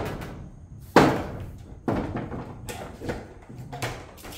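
Several sharp knocks and thuds at irregular intervals, each dying away quickly, the loudest about a second in.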